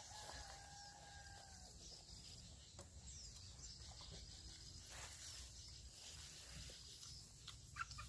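Near silence with faint outdoor ambience: a steady high hiss, a faint drawn-out call in the first second and a half, and a single sharp click near the end.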